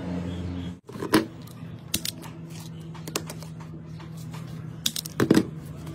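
Sharp clicks and snaps of hands handling wires and an automatic wire stripper, a few scattered clicks with the loudest about a second in and a cluster near the end, over a faint steady low hum.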